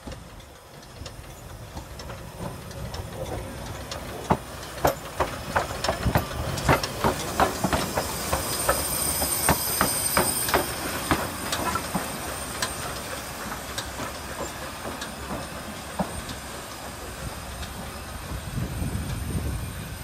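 Narrow-gauge steam locomotive passing close by at low speed, its wheels making a quick run of sharp clicks over rail joints and points, with a hiss of steam midway through.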